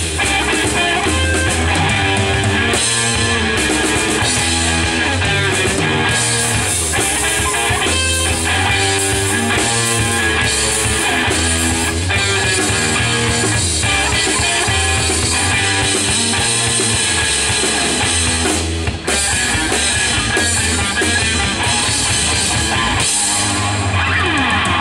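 Live rock band playing an instrumental piece: electric guitar over electric bass and a Yamaha drum kit, with a steady pulsing bass line.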